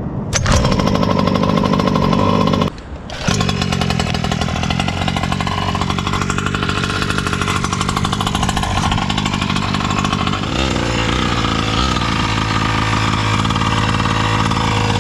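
Small two-stroke gas engine of a 1/5-scale Primal RC MT Raminator monster truck running under way, a steady engine note that dips briefly about three seconds in.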